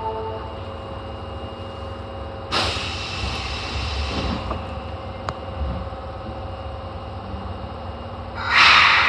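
Inside an Osaka Metro 22 series subway car standing at a station: a steady low hum with faint steady tones from the car's equipment. The last of a two-tone door chime fades at the very start. There are two sudden rushes of hissing air, one about two and a half seconds in and a louder one near the end.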